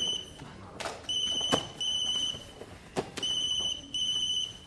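Telephone ringing with a high electronic double ring: pairs of short rings repeating about every two seconds. A few sharp knocks fall between the rings, the loudest about one and a half seconds in.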